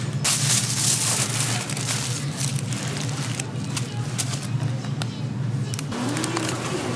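Food-stall kitchen noise: a steady low hum under a hiss, with scattered clicks and clatter, changing abruptly about six seconds in.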